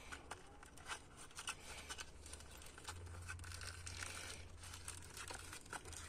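Faint crinkling and tearing of packaging, a cardboard box and a clear plastic bag, as a new oil pressure sensor is unwrapped: many small irregular crackles.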